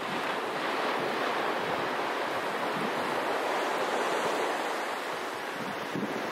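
Ocean surf breaking on a sandy beach: a wave crashes right at the start and its wash runs on as a steady rush that eases slightly near the end.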